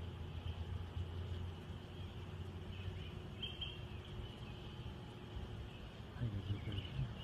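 Faint outdoor evening ambience: a steady high chirring with a few short chirps over a low hum.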